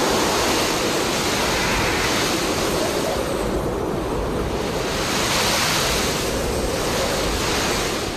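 Strong blizzard wind blowing over the ice, a steady rushing noise that swells and eases in gusts every couple of seconds.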